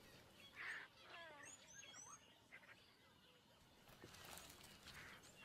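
Faint bird calls and chirps, a cluster of short sliding calls about a second in, over quiet bush ambience.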